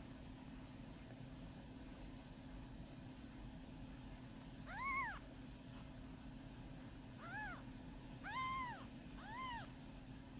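Newborn kittens mewing: four short, high-pitched mews, each rising and falling in pitch, starting about halfway through, over a faint steady hum.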